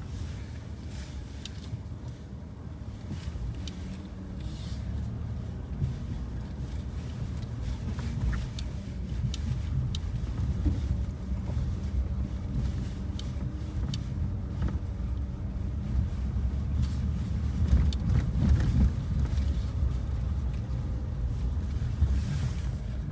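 A car being driven: a steady low rumble of engine and road noise that swells somewhat in the second half, with a few faint clicks.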